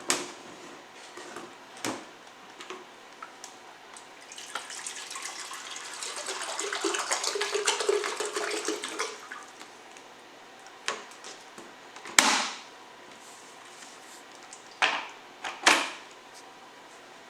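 Water running into the plastic jug of an electric kettle for about five seconds, building up and then stopping. Sharp clicks and knocks from handling the jug and its lid come before and after, the loudest about twelve seconds in.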